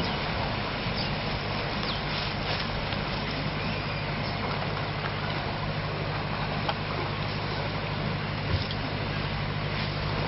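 Paddle steamer under way, its engine and paddle wheels giving a steady low drone over a wash of water noise.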